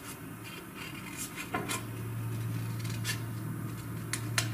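Scissors cutting through red coloured paper: a handful of short, sharp snips, irregularly spaced, with light paper handling. A steady low hum runs underneath.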